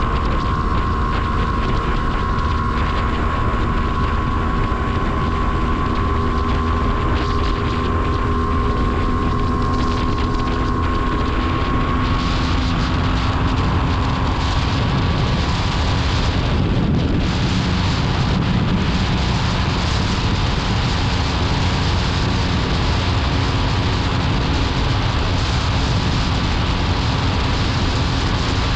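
MZ ETZ 250 motorcycle's single-cylinder two-stroke engine running steadily, with a brief shift in engine note about two-thirds of the way through.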